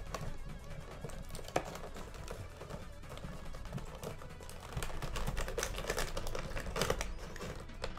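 Plastic-and-cardboard blister package of an action figure being cut open by hand, a run of small clicks, scrapes and crackles, busier and louder in the second half. Background music plays underneath.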